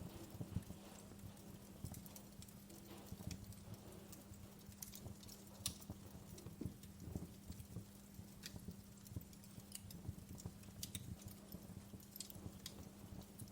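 Wood fire burning in a fireplace, crackling faintly with irregular sharp pops and snaps, over a low steady hum.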